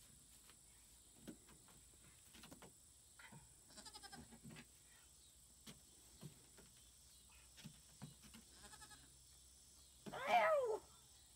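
A young goat gives one loud bleat about ten seconds in, falling in pitch, after faint rustling and small knocks of straw and hooves.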